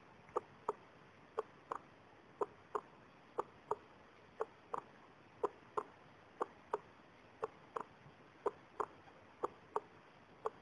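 Heartbeat sound effect: a steady double beat (lub-dub), about once a second, over a faint hiss.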